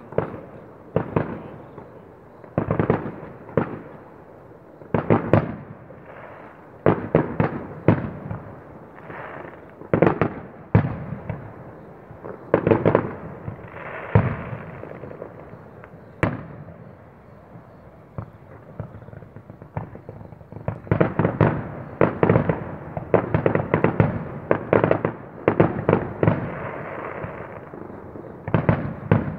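Fireworks display: aerial shells going off one after another with sharp bangs, some followed by crackling. A quieter lull comes just past the middle, then a dense barrage of bangs.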